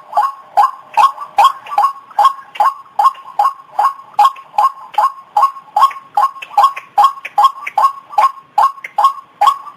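White-breasted waterhen calls played as a bird-lure recording: a fast, even series of short, harsh notes, about two to three a second.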